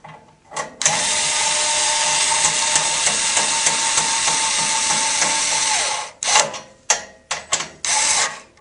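Cordless power screwdriver driving a strike-plate screw into a metal door frame: the motor runs steadily with a whine for about five seconds, winds down, then gives several short bursts as the screws are run down and seated.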